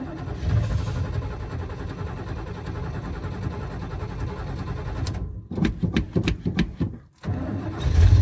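Oldsmobile 455 V8 being cranked over by the starter, slow to start after sitting several days: steady cranking for about five seconds, then a few ragged short stutters, and the engine catches and runs near the end.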